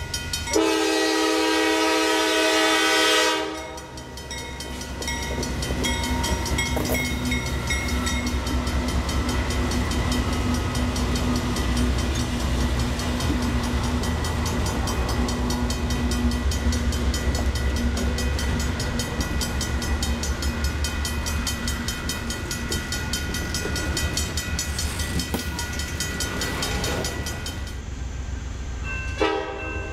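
Diesel freight locomotive blowing its multi-note air horn for a grade crossing, the blast ending about three and a half seconds in. The locomotives and freight cars then rumble steadily past at close range. Another horn blast starts just before the end.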